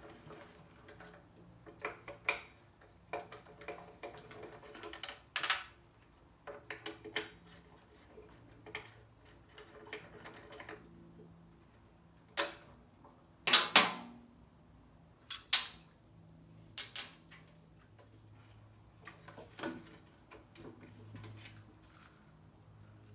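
Irregular clicks and knocks of hand tools and plastic parts as the bolted-on recoil starter cover of an Echo leaf blower is unbolted and taken off. The loudest knocks come in a short cluster just past halfway.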